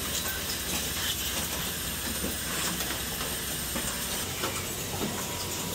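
Automated assembly machine with pneumatic actuators running: a steady hiss over a low hum, with scattered light clicks of the moving mechanisms.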